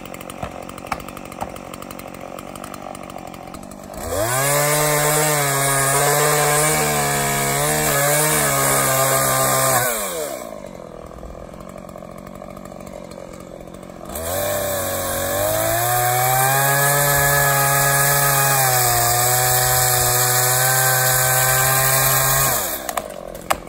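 Two-stroke chainsaw cutting into a tree trunk in two long full-throttle runs, one of about six seconds and one of about eight, dropping back to a low idle in between and at the end. The engine note wavers slightly as the chain works through the wood.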